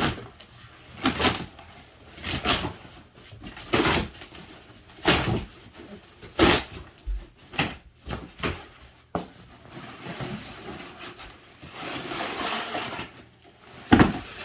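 Cardboard shipping box being torn open: a series of sharp rips and knocks roughly once a second, then a few seconds of rustling packaging, and one sharp knock near the end.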